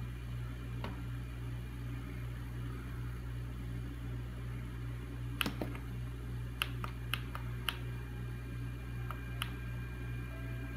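Plastic push-buttons on the front of a Raynic clock radio clicking as they are pressed: about eight sharp clicks starting about halfway through, over a steady low hum.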